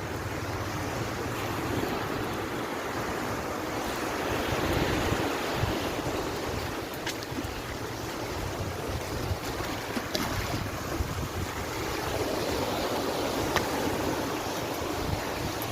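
Sea waves washing onto the beach, swelling twice, with wind buffeting the microphone as a gusty low rumble. A few faint clicks sound now and then.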